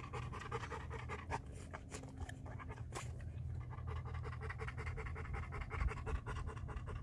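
Rapid rhythmic panting close to the microphone, about four breaths a second, becoming steady about halfway through, over a low steady rumble.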